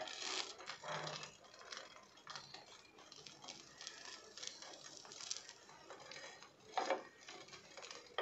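Metal spatula scraping and tapping on a tawa griddle as a toasted bread sandwich is pushed and lifted, with scattered light clicks and one louder knock near the end.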